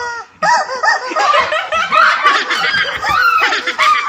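Several people laughing, their laughs overlapping.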